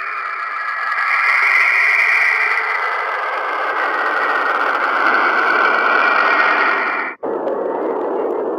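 Two "planet sound" space recordings, each a steady hissing, whooshing noise with no tune or beat. About seven seconds in, the higher hiss cuts off abruptly and a lower, rougher rushing noise takes its place: the next planet's sound.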